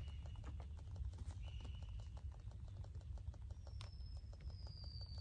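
Mangrove forest ambience: a faint, steady crackle of tiny clicks, with a short high whistle twice and a long, slowly falling high whistle near the end, plus one sharp snap.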